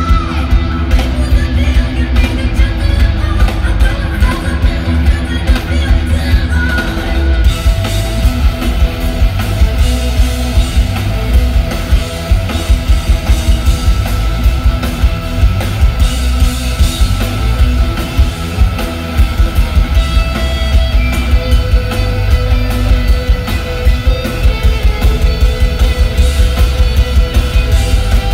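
A live rock band playing loudly on electric guitars, bass guitar and drums, in a passage with no singing. About seven seconds in, the band gets fuller and brighter.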